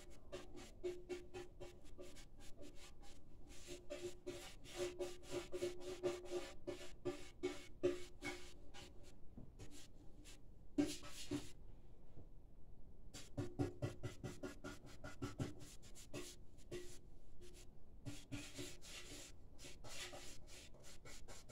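Paintbrush scrubbing paint onto the inside of a Triumph motorcycle fuel tank: fast, scratchy strokes, with a short pause about eleven seconds in.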